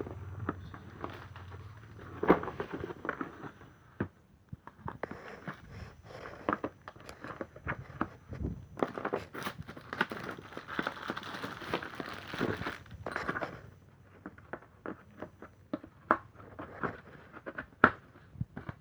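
Irregular clicks, knocks and crinkling, as of objects being handled; no motor runs.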